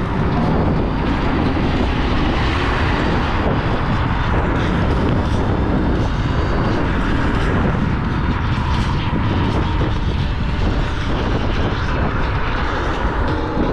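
Steady wind rush buffeting the microphone while riding a Dualtron X2 Up electric scooter at speed. It is a continuous, even rushing noise with a heavy low rumble and no clear rhythm.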